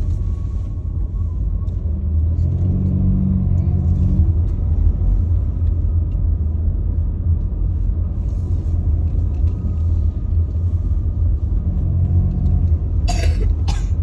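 Steady low rumble of a car's road and engine noise, heard from inside the moving car's cabin. Two short sharp noises come near the end.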